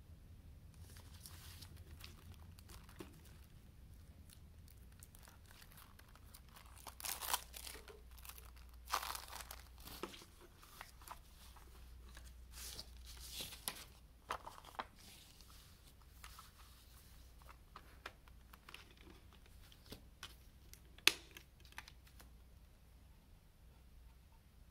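Cellophane shrink wrap being torn and peeled off a plastic CD jewel case, crinkling in several bursts. This is followed by handling of the jewel case, with one sharp plastic click near the end as the case is opened.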